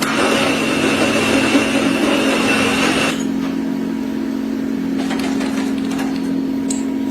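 Machine tool running with a steady hum; for the first three seconds a loud hiss with a thin high whine rides over it, then stops suddenly, leaving the hum.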